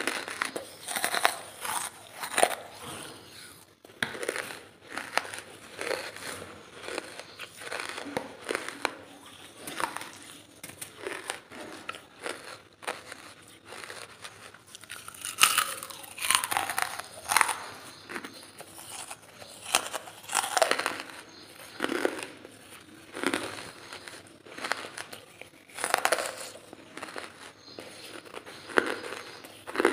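Crunching and chewing of hard charcoal lumps, bite after bite at irregular intervals, with louder crunches about halfway through and again near the end.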